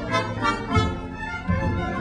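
Dance music led by brass instruments such as trumpets and trombones, over a bass drum beating about once every three-quarters of a second.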